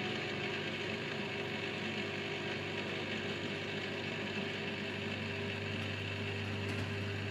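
A steady mechanical hum with a constant low drone.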